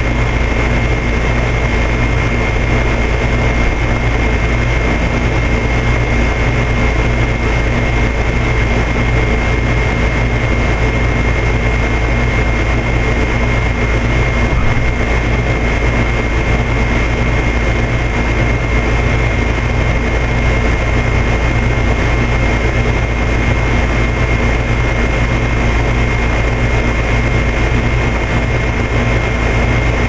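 2004 Goodman 3.5-ton heat pump outdoor unit running steadily in heat mode: its Copeland reciprocating compressor humming and its condenser fan blowing, with a thin, steady high-pitched tone over the hum.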